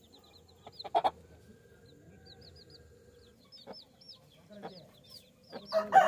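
Baby chicks peeping in short, falling high notes, with a few clucks from the mother hen, the loudest a quick double cluck about a second in.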